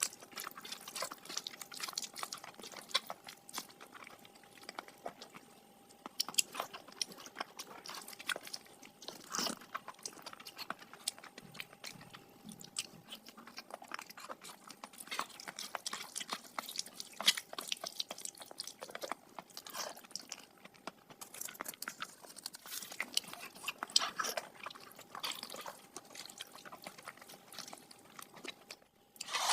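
Close-miked chewing of mutton fat curry with rice: wet smacks and short mouth clicks come irregularly and closely spaced throughout.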